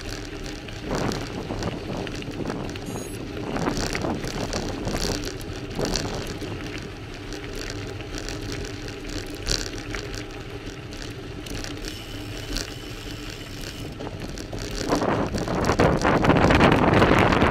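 Bicycle tyres rolling and crunching over a loose gravel track, with the bike rattling and wind buffeting the microphone. The noise grows louder for the last few seconds.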